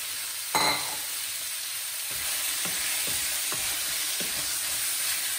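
Diced lamb sizzling in hot oil with browned onions in a frying pan, searing over medium-high heat, as a wooden spoon stirs it. A louder knock of the spoon about half a second in, then lighter scrapes and knocks.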